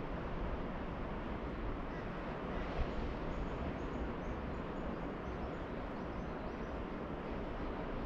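Steady rush of distant ocean surf, with a few faint, high bird chirps in the middle.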